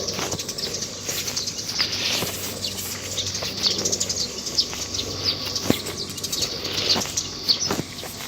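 Small birds chirping over and over outdoors, with a few soft knocks scattered through.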